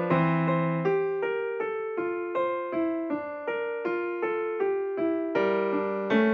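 Background music: a gentle melody on a piano-like keyboard, with evenly paced notes that are struck and then die away, roughly three a second.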